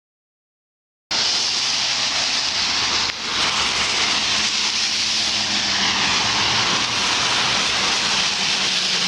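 Steady hiss of traffic on a wet street, tyres running through water on the road, with a low engine hum coming in about halfway through. The first second is silent.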